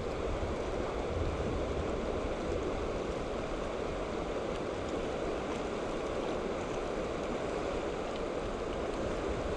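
Steady, even rushing outdoor ambience with no distinct events.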